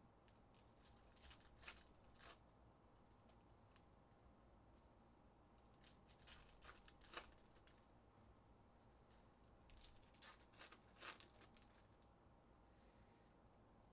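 Foil trading-card pack wrappers being torn open and crinkled, faint, in three short bursts of crackling a few seconds apart.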